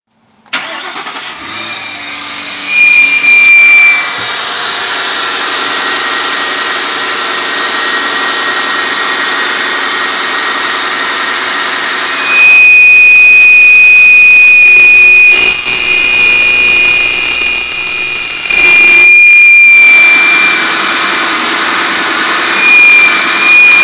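Cold start of a 4.6-litre single-cam V8 below freezing: the engine cranks and catches about half a second in, then idles with a loud, high, steady whine/whistle. The whistle grows much louder about halfway through, heard right at the drive belt and pulleys. The owner places the noise at the front of the engine by the drive belt, and it is heard only in the first 30 seconds of a cold start below 30°F.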